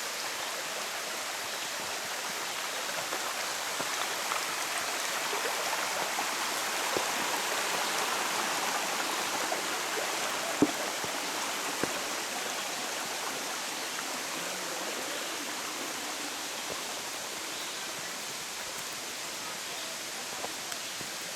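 Steady rushing of a mountain stream, swelling slightly midway, with a few faint clicks and one sharp tap about halfway through.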